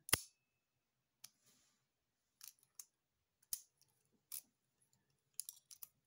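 Sharp metallic clicks of a padlock comb being pushed past the pins inside a 40mm pin-tumbler padlock: a loud click at the start, single clicks about once a second, then a quick run of clicks near the end.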